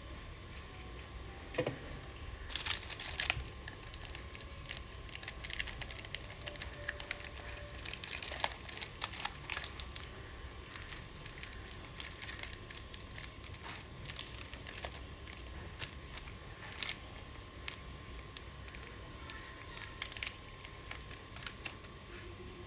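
Hands handling items: irregular crinkling and rustling with scattered light clicks, busiest about three seconds in, over a faint steady hum.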